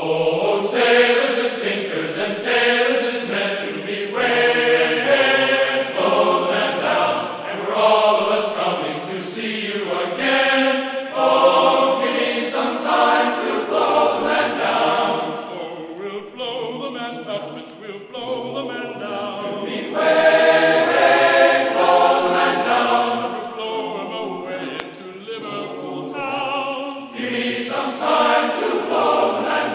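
A choir singing a slow song in harmony, phrase after phrase, with a softer passage about halfway through.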